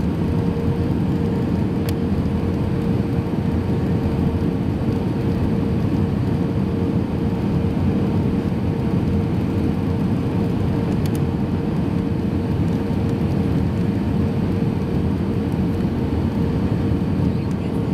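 Steady in-cabin noise of an Airbus A320-200 on final approach, heard from a seat over the wing: a low rumble of engines and airflow with flaps extended, with a steady mid-pitched hum running through it.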